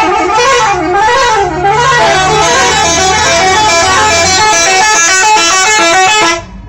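A bus 'telolet' horn, a set of electric trumpet horns, playing a loud, fast tune of stepping notes. It has quick up-and-down runs about a second in and cuts off suddenly near the end.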